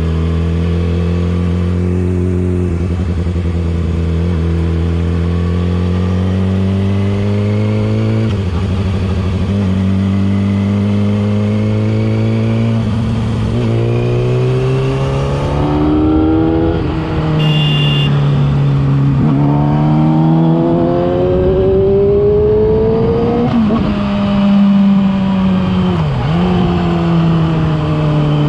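Yamaha R6's inline-four engine running through a LeoVince aftermarket exhaust while riding. It holds a steady note for the first several seconds, then climbs in pitch and drops back again and again as the gears change, about six times.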